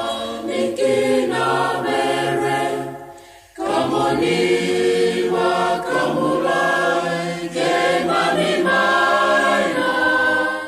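A choir singing in long held notes, breaking off for a moment about three and a half seconds in and then coming back in.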